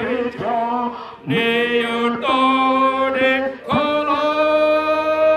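A man singing a slow hymn in Dholuo, one voice in long held notes, the last held for over two seconds near the end.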